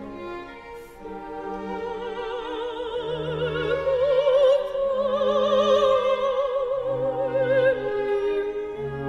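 Music soundtrack in classical operatic style: a high voice sings long held notes with wide vibrato over sustained strings. It swells from soft to loud over the first half.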